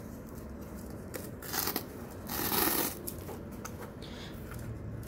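Hands handling and rubbing a corrugated cardboard mailer box, giving two short scraping rustles about a second and a half in and again a second later, the second louder.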